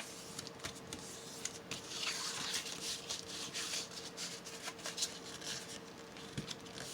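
Paper being handled and folded by hand: soft rustling and crinkling with small sharp creasing clicks.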